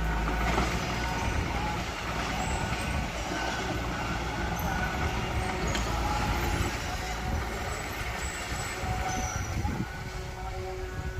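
Mitsubishi BD2F crawler bulldozer at work, its diesel engine running steadily under load with a dense, rough rumble.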